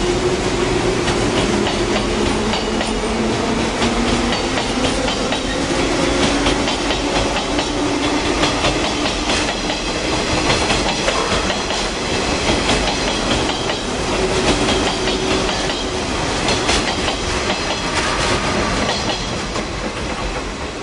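JNR 583 series electric train pulling out and running past, its wheels clattering over the rail joints in a quick run of clicks. The sound eases off near the end as the last car clears.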